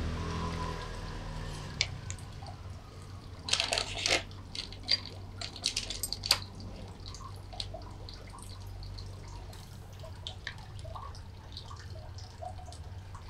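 Light clicks and taps of hard plastic parts being handled on a wooden workbench as a 3D-printed drilling template is pressed onto an acrylic plate and a bar clamp is fitted over it. The sharpest, busiest clicks come between about three and a half and six and a half seconds in, over a low steady hum.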